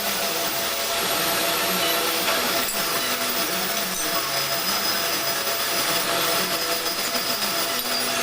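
Metal lathe running steadily with a continuous rough hiss, machining a crankshaft bearing surface.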